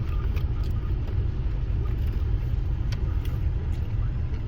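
Steady low rumble of a car idling, heard from inside the cabin, with a few faint clicks over it.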